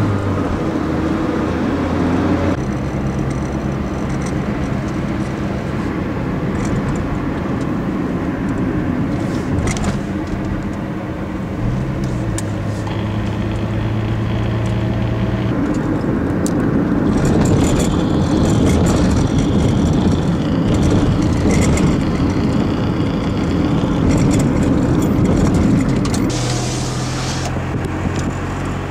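Car engine hum and road rumble heard from inside a moving car, the engine note shifting in pitch several times.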